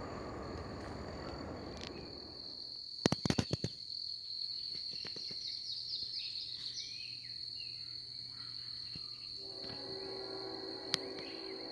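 The rumble of a passing freight train fades out over the first two seconds or so, followed by a quick cluster of loud sharp clicks. A steady high-pitched insect drone runs throughout, with birds chirping in the middle and a low steady tone coming in near the end.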